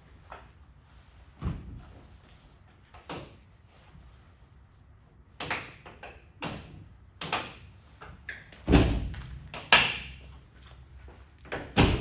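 Rear engine-compartment door of a Blue Bird RE school bus being shut and latched: a series of metal knocks and clicks, the heaviest about nine seconds in and again just before the end.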